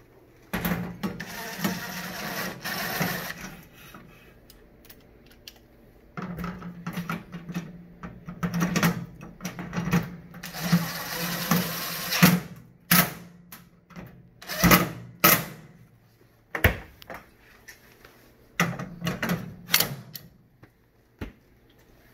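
Cordless drill/driver running in two long steady runs, driving machine screws through a bracket into rivnuts set in sheet metal. Then come scattered clicks and knocks of the bracket and screws being handled.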